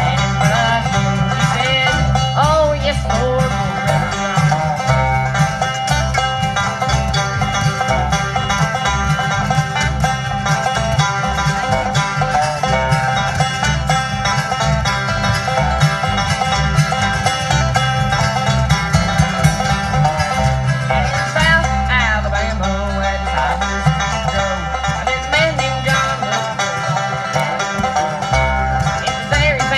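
Bluegrass band playing an instrumental passage: banjo, mandolin, acoustic guitar and upright bass, with no singing.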